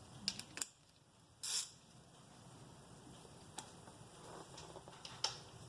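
Scattered light clicks and clinks from hand tools working the caliper bolts on a car's front brake, with a short rasping burst about one and a half seconds in.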